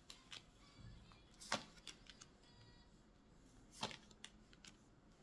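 Oracle cards being drawn and laid down, a few faint sharp clicks and snaps of card stock, the two loudest about a second and a half in and near four seconds.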